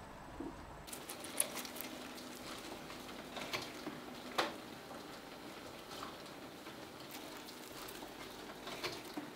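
A mouse scurrying over dry straw bedding: scattered light rustles and clicks, starting about a second in, with a few sharper ticks.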